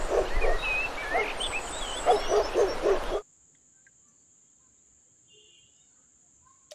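A dog barking in quick runs of short barks, about five a second, with birds chirping over it. It cuts off abruptly about three seconds in, leaving near silence with a faint steady hiss and a single click near the end.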